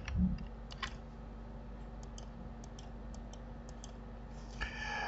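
Computer mouse and keyboard clicks: a few sharper clicks in the first second, then a run of lighter mouse-button clicks from about two to four seconds in, over a faint steady hum.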